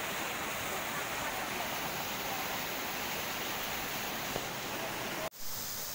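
Steady rushing of a rocky mountain stream flowing below a footbridge. It cuts off abruptly about five seconds in.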